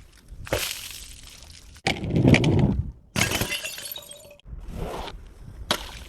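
Glass bottles shattering in a run of separate crashes, each with a short ringing tail of breaking glass. The loudest and heaviest crash comes about two seconds in.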